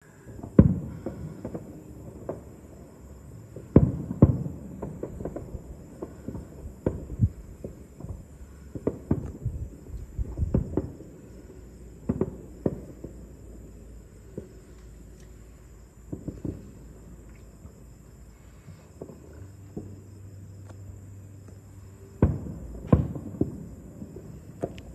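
Distant aerial fireworks bursting: irregular dull booms and pops, some in quick clusters, the loudest near the start, about four seconds in and near the end. A steady high insect chirring, typical of crickets, runs underneath.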